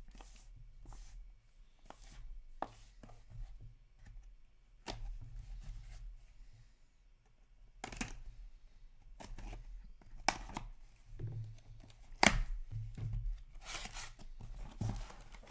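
A sealed cardboard trading-card box being opened by hand: taped seam slit with a cutter, cardboard scraping and rustling, and a handful of sharp knocks and clacks as the box is handled. The loudest clack comes a little past the middle.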